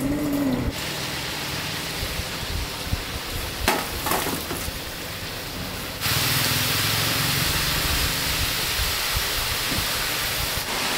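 Sizzling of red chili paste (sambal masak merah) frying in oil in a large wok as the oil separates, with a few short clicks of the stirring ladle about four seconds in. About six seconds in the sound cuts abruptly to a louder, steady hiss.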